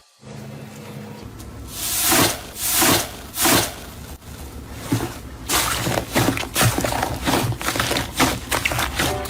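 Slime being squeezed and worked by hand: loud wet squishing swells, then a run of quick crackles and pops, over background music.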